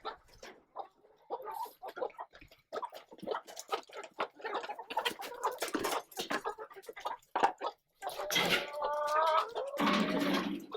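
Chickens clucking in a string of short, irregular sounds, breaking into longer drawn-out hen calls in the last few seconds.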